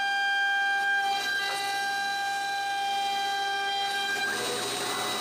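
CNC router spindle whining steadily at a high pitch while a round-nose bit makes the finishing pass on a curved wooden part. A little past four seconds in, the whine fades under a louder rushing cutting noise.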